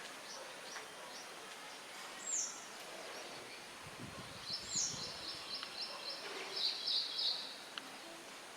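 Small birds calling: two short, high, down-slurred notes, then a fast run of high chirps, about five a second, from about four and a half to seven and a half seconds in, over a faint steady hiss of outdoor background.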